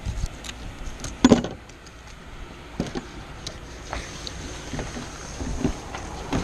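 Fillet knife cutting through a fish and knocking against a plastic cutting board: irregular knocks and scrapes, the loudest about a second in.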